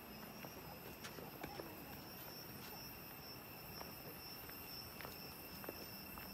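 Faint outdoor ambience: a steady high-pitched insect chorus, with light scattered footsteps on a dirt path.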